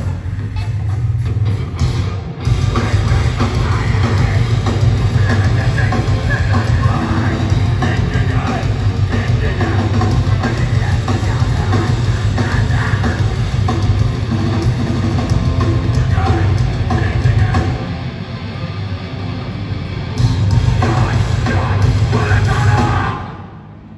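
A live heavy metal/hardcore band playing at full volume: pounding drums and distorted guitars with heavy bass. The music dips for a couple of seconds late on, surges back, then cuts off just before the end.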